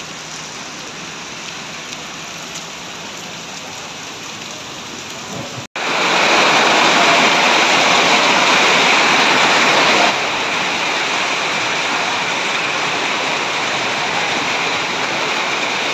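Heavy rain and hail pelting down in a storm, a steady hiss of drops on the ground. About six seconds in it cuts sharply to a louder, fuller downpour, which eases slightly about ten seconds in.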